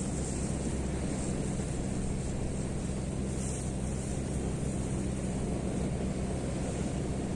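A steady, unchanging low engine drone, holding the same pitch throughout.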